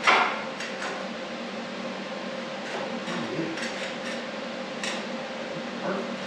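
A sharp metal clank with a brief ring as the steel roll-cage tube and level are handled, then a few light taps over a steady low hum.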